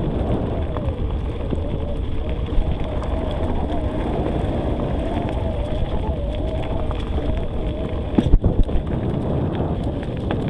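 Wind noise on the microphone and tyre rumble from an electric mountain bike climbing a dirt trail, with a faint wavering whine from its Shimano Steps E8000 mid-drive motor pulling under load. A sharp knock a little past eight seconds in.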